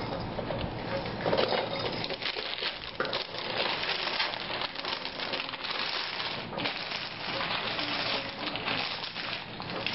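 Gift-wrapping paper being crumpled and torn off a box, a continuous crinkling rustle full of small crackles.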